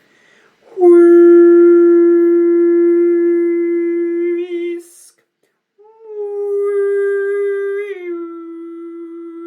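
A woman's voice toning two long sustained notes, each several seconds long, with a breath gap between them. The second note starts a little higher and steps down to the first pitch partway through, with a slight waver at the end of each note.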